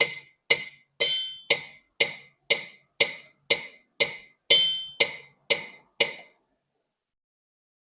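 Yamaha PSR-I510 keyboard's sampled Chenda drum voice, played in an even beat of about two sharp strikes a second, some with a bright ringing overtone, stopping about six seconds in.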